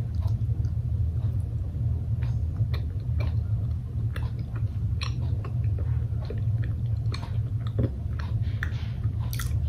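A person chewing a soft green tea mochi, with scattered small wet mouth clicks and smacks. A steady low hum runs underneath.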